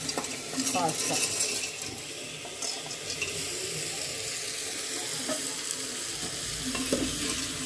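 Dry fusilli pasta tipped into a pressure cooker of sizzling tomato-and-pea masala, a few clicks of pasta and metal at the start. Steady frying sizzle as a spatula stirs it in.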